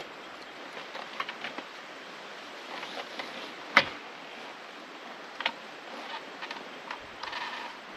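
Clicks and knocks of gear being handled on a four-wheel drive's roof rack, with one sharp knock near the middle louder than the rest and a brief rustle near the end, over a steady outdoor hiss.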